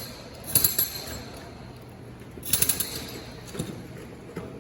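Two short bursts of a jackhammer breaking concrete, one about half a second in and another around two and a half seconds, each a rapid rattle of strokes.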